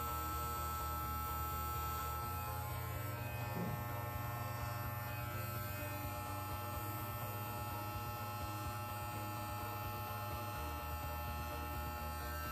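Electric hair clippers running with a steady buzz while trimming short hair along the sideburn and side of the head. The hum dips slightly in pitch about ten seconds in.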